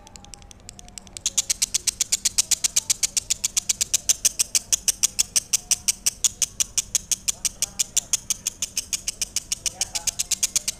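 Lovebird ngekek: a long, unbroken run of rapid, sharp, high chattering notes, about eight a second, starting about a second in and stopping just before the end.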